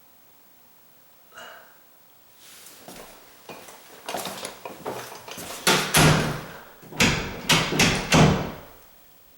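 A door being worked shut and open, its latch bolt clicking and knocking against the strike plate, building to several loud knocks in the second half. The latch is not going all the way into the strike plate.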